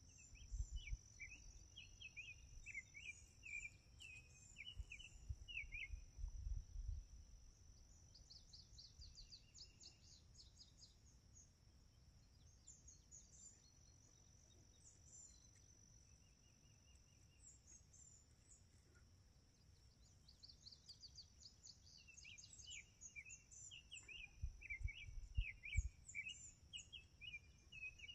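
Faint birdsong: bouts of repeated short chirping phrases, over a steady high-pitched insect drone. Low rumbles on the microphone come in the first few seconds and again near the end, where they are the loudest sound.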